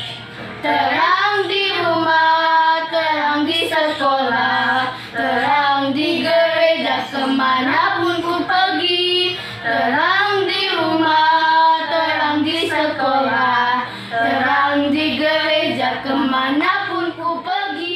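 A child's voice singing a children's Sunday school song over faint backing music, in phrases of about four to five seconds with short breaths between them.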